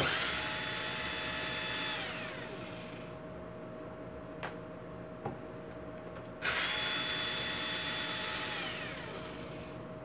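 Cordless electric screwdriver run twice, each time for about two and a half seconds, driving out screws; its motor whine holds a steady pitch, then drops as it spins down. Two small clicks fall in the pause between the runs.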